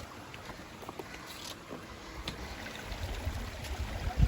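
Water sloshing and splashing, with wind rumbling on the microphone from about three seconds in.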